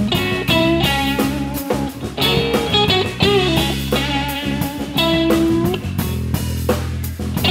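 Live blues band playing an instrumental passage: lead electric guitar with bending, wavering notes over bass guitar and drum kit.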